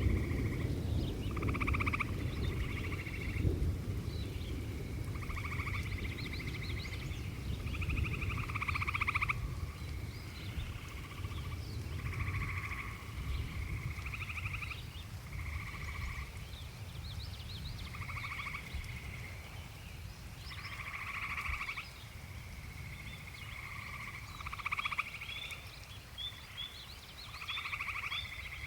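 Frogs calling over and over, each call a pulsed trill about a second long, several overlapping, over a low rumble that fades away. Near the end a quick series of short, high chirps joins in.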